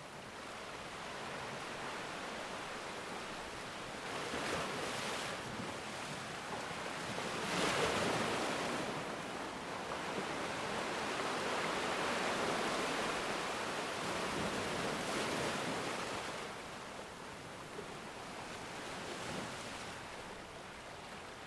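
Sea waves washing onto the shore, the surf swelling and easing in slow surges, the biggest about eight seconds in. Some wind on the microphone.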